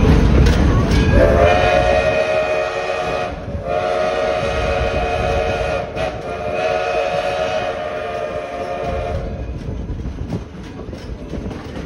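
Steam locomotive chime whistle sounding three long blasts, a chord of several steady tones, with the last blast the longest. A low rumble runs under it, loudest before the first blast and after the last.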